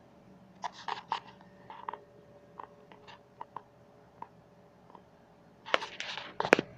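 Scattered sharp clicks and taps, a few close together about a second in and a dense, louder cluster near the end, over a faint steady hum.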